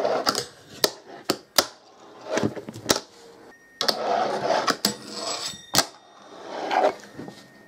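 A fingerboard rolling and scraping across a wooden tabletop and along a small metal rail, with several sharp clacks as the board's tail and wheels strike the table.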